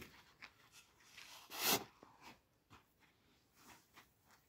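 Shovel scooping from a pile of sand and flinging the load into a pickup truck's bed: one loud scrape-and-throw about a second and a half in, with fainter scrapes around it.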